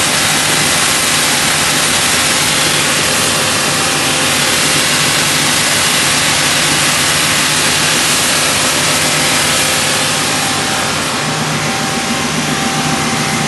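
Viet S1 wide-belt sanding and calibrating machine running: a loud, steady rush of noise over a low hum, easing slightly about ten seconds in.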